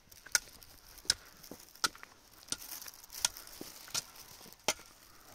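Steady striking of something hard: seven sharp knocks, about one every three-quarters of a second.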